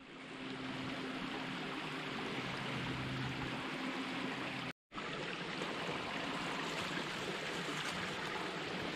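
Small, shallow rocky creek running steadily over stones, a continuous babbling rush of water. It breaks off for an instant about five seconds in, then resumes.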